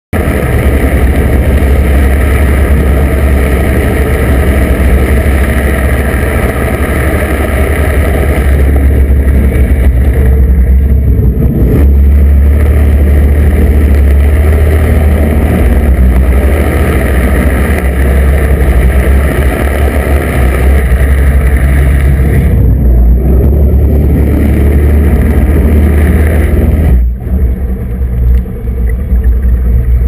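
Boat propeller drives turning under power, heard from underwater: a loud, steady low hum with a dense rush of propeller wash and bubbles, dipping briefly a few times near the end.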